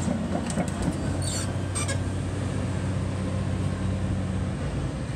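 Heavy machine's engine running steadily, with a few sharp clinks and scrapes in the first two seconds; the hum drops away about four and a half seconds in.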